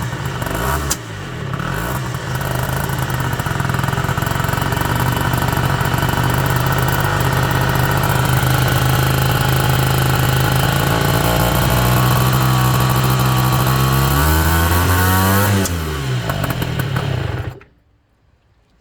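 Rebuilt Peugeot Ludix/Speedfight scooter engine running, blipped a couple of times, then held at a steady speed; it is revved once more near the end and cuts out suddenly. The owner reports the engine popping since the rebuild.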